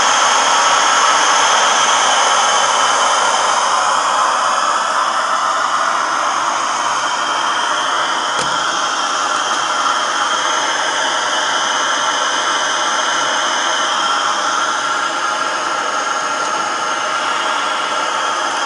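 Camping gas stove burner running with a steady hiss.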